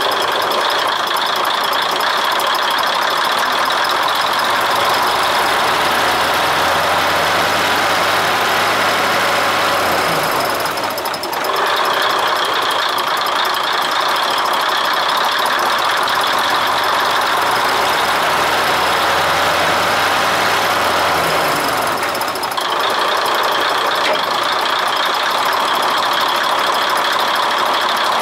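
Underfloor diesel engine of a KiHa 200 series railcar idling steadily with a rattling clatter. Twice, for about five seconds each time, a deeper hum joins in, then the sound briefly drops.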